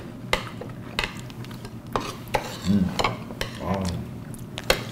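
Chopsticks and spoons clicking and scraping against dishes as several people eat, with about half a dozen sharp clinks. There are two brief murmurs partway through.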